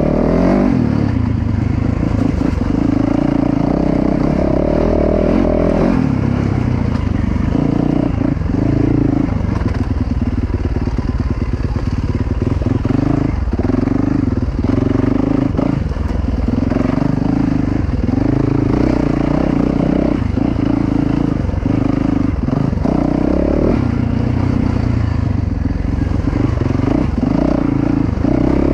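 2019 Yamaha YZ450FX's single-cylinder four-stroke engine under way on a dirt trail, its note rising and falling again and again as the throttle is opened and shut.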